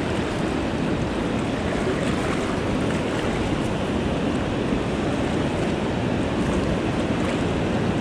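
Steady rush of a fast, shallow river running over rocks toward the lip of a waterfall, with the falls' roar mixed in.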